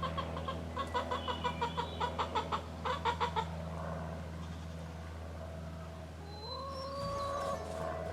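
A hen clucking in a fast run of short notes that stops about three and a half seconds in. Near the end comes one call that rises and then holds briefly. A steady low hum runs underneath.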